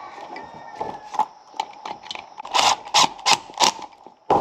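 Small metallic clicks and scrapes of a screwdriver and ground wire working at the ground terminal screw of a GFCI outlet, with a run of four sharper scraping strokes near the end as the screw is turned down.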